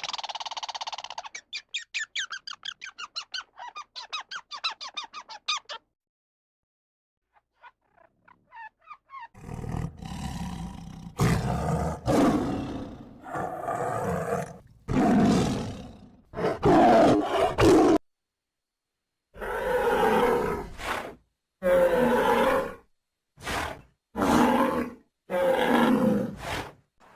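A fast chattering call of rapid high-pitched pulses lasting several seconds, then after a pause a large animal roaring, about a dozen deep roars of a second or so each, with short gaps between them.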